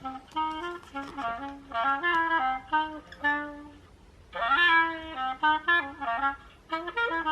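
Recorded clarinet melody played from a children's sound book's sound button: short phrases of separate notes, a brief pause just before the middle, then a phrase that opens with an upward slide.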